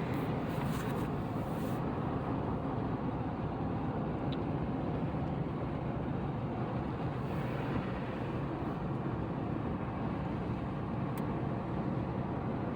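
Steady road noise of a car driving along a highway: a constant hum of tyres and engine.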